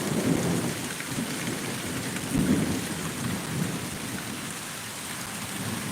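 Thunder rumbling low through steady rain, swelling a few times and easing off toward the end.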